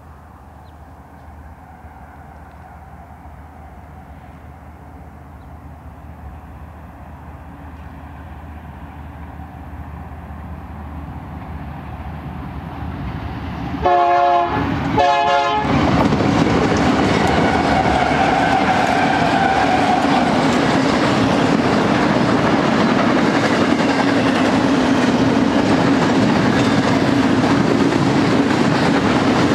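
BNSF double-stack intermodal freight train approaching and passing, its noise growing steadily louder. As the GE diesel locomotives reach the listener about halfway through, they sound two horn blasts, the second one shorter. A loud, steady rumble and clatter of the stack cars rolling by follows.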